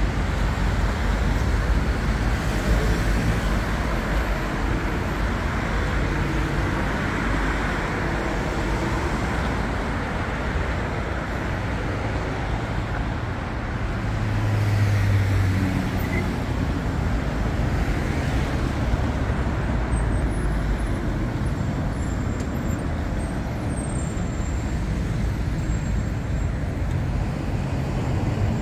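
City road traffic: a steady rumble of cars and buses passing. A low engine hum swells about halfway through.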